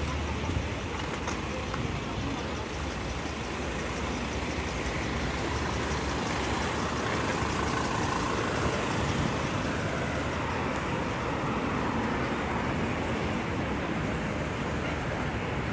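City street traffic: cars driving past a crossing, a steady rush of engines and tyres that swells a little midway.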